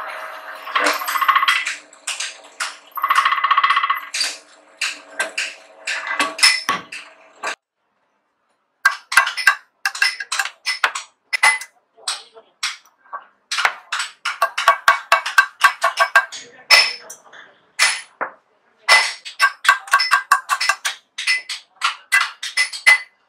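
A drill press motor hums steadily while drilling into a steel flywheel. After a short break about eight seconds in, a hammer strikes a small steel punch held against the flywheel in rapid runs of sharp metallic clinks, several a second, with brief pauses.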